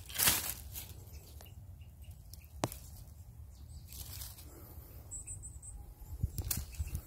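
A small hand hoe scraping into dry soil, with one loud scrape at the start and a sharp knock a few seconds in. Then fingers brushing earth away and dry pine needles and leaves rustling as a wild balloon flower root is worked loose.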